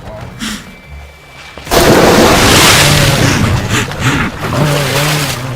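A Nile crocodile lunging out of the river at a wildebeest: a sudden, loud splash about two seconds in, then a few seconds of thrashing water with low calls through it.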